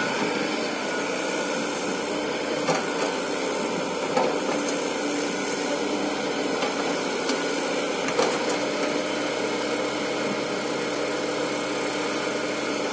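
Heavy earth-moving machine's diesel engine running steadily, with a few short knocks.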